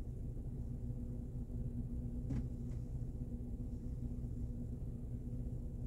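Steady low hum of a Mercedes-Benz ML's engine idling, heard from inside the cabin, with a single light click a little over two seconds in.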